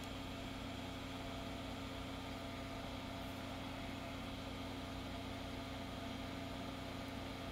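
Soldering fume exhaust fan running steadily, a constant hum with several steady tones.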